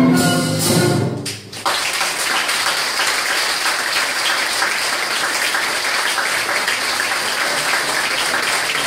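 An ensemble's final held chord, with strings, ends about a second in, and after a short pause the audience breaks into steady applause.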